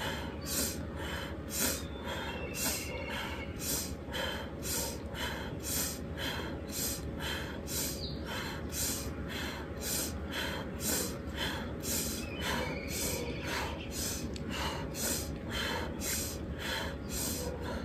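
Rapid, rhythmic pranayama breathing: forceful inhales through the nose alternating with exhales through the mouth, about two breaths a second and keeping an even pace, each breath timed to a twist of the torso.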